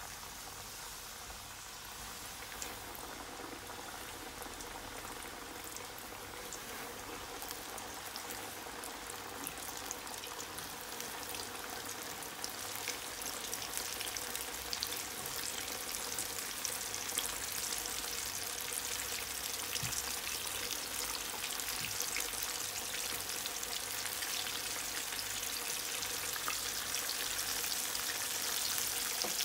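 Flour-coated chicken pieces frying in medium-hot oil in a pan, the first of two fryings: a dense sizzle of fine crackles and pops that grows steadily louder as more pieces go in.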